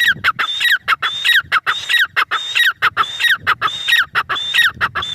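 Grey francolin calling: a loud, fast run of repeated notes, about two a second, each one level and then sliding downward at its end.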